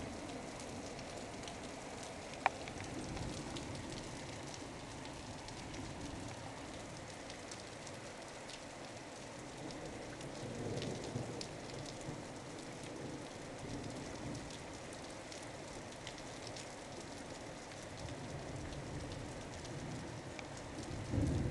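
Heavy rain falling steadily during a thunderstorm, with scattered sharp ticks of single drops.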